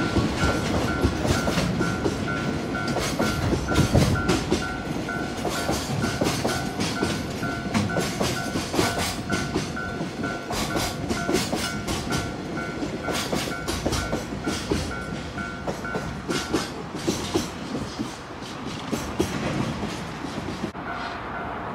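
Freight train of container flatcars rolling over a level crossing, the wheels clicking and rumbling over the rail joints. The crossing signal's bell rings in a steady repeating pulse, stops a little before three quarters through, and starts again shortly before the end.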